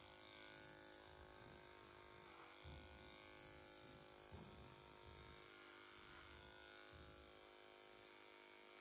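Electric horse clippers buzzing faintly and steadily while cutting the short hair on a horse's face, with a couple of soft low bumps.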